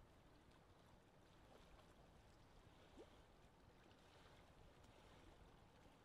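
Faint lake wind ambience: a steady low rush of wind over water. One brief rising chirp comes about three seconds in.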